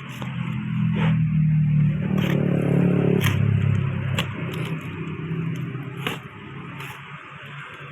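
A motor vehicle engine running close by, rising in pitch and loudness about two to three seconds in and then easing off, with scattered sharp clicks and knocks over it.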